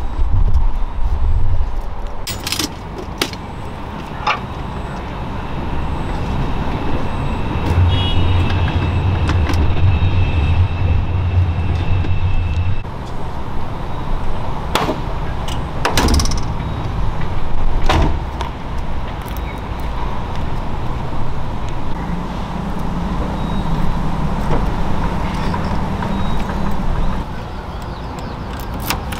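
Vehicle doors and latches clunking shut several times over a steady low rumble of vehicle noise.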